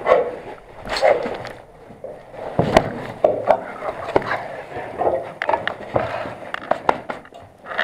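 Indistinct voices with irregular sharp clicks and knocks scattered through, the loudest nearly three seconds in.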